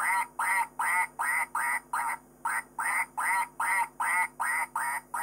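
Ducks quacking: a run of short quacks repeated at about three a second.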